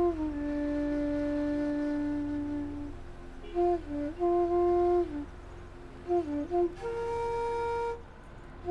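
Background music: a slow melody on a flute-like wind instrument, with a long held note at first and then shorter phrases and held notes.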